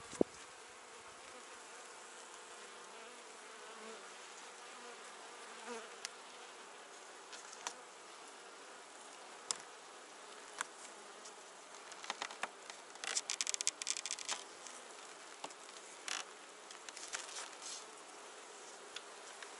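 Honeybees buzzing steadily over an open hive. Scattered sharp clicks and scrapes come from wooden frames being shifted and levered with a hive tool, with a quick rattling run of clicks about two-thirds of the way through.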